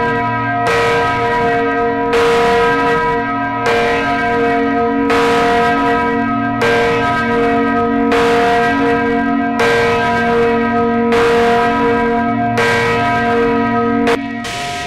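A large swinging church bell tolling for a funeral, its clapper striking about every one and a half seconds, and each stroke's deep hum ringing on into the next.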